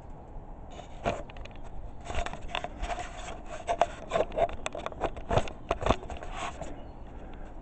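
Handling noise from a handheld camera being moved and brushed against timber: a run of rubbing, scraping and sharp knocks that starts about a second in and stops near the end.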